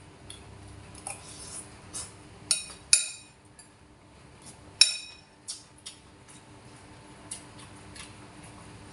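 Spoon clinking and scraping against a ceramic bowl as food is scooped up: a series of sharp separate clinks, the loudest about five seconds in, over a faint steady hum.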